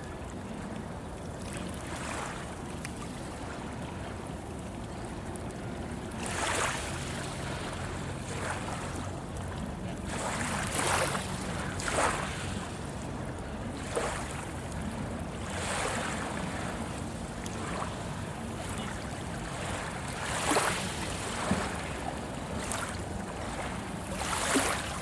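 Small waves lapping on a sandy, pebbly lakeshore, each wash a brief hiss that comes every couple of seconds, over a steady low hum.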